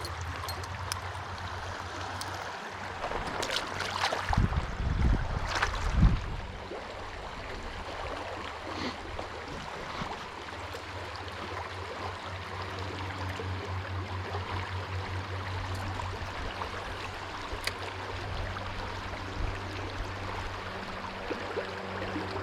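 Stream water running steadily over rapids, with a few louder knocks and rustles between about three and six seconds in.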